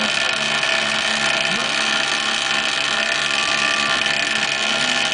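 An engine running steadily at a constant speed, with a dense even drone of many fixed tones.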